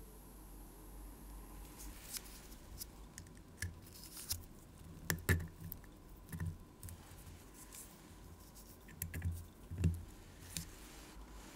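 Scattered light clicks and taps of the small steel parts of a watchmaker's jewelling tool, its anvil and pusher, being handled. The two loudest come about five and ten seconds in, each with a soft knock beneath.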